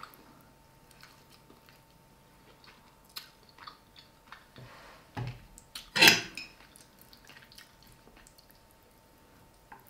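Sounds of someone eating: scattered small clicks and taps, a dull thump about five seconds in, and one louder, brief noise about six seconds in.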